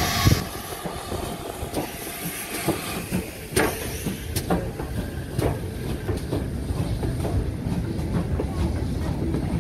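Steam train on the move: a hiss of steam cuts off just after the start, leaving a steady low rumble of the train with irregular metallic clanks and knocks from the wheels and stock.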